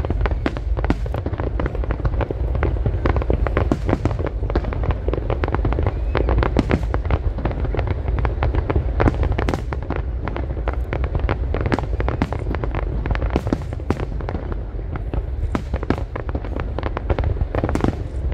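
Aerial fireworks display: a dense, continuous barrage of shell bursts, many sharp cracks a second over a constant deep rumble.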